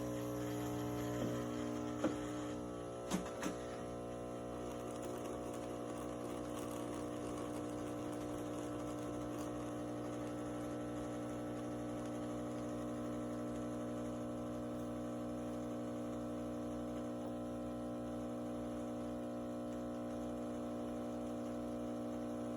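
Miele CM 5310 automatic coffee machine dispensing espresso into a mug: its pump hums steadily, with a few sharp clicks in the first few seconds. The hum cuts off suddenly at the end as the brew finishes.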